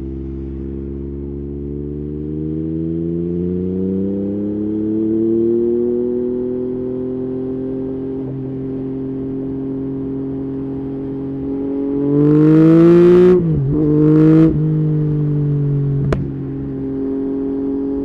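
Yamaha MT-09's three-cylinder engine, through an Akrapovic exhaust, revving while stationary. Its pitch climbs slowly and holds, then it settles. About twelve seconds in comes a sharp, loud rev that falls away, followed by a shorter second blip and a single sharp crack.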